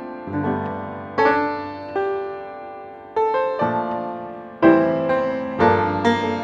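Background piano music: chords struck about once a second, each ringing out and fading before the next.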